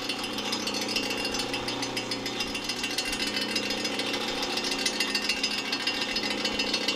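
Rockwell 21-122 vertical milling machine running, its spindle turning a face mill, with a steady motor hum under a fast, rattling clatter.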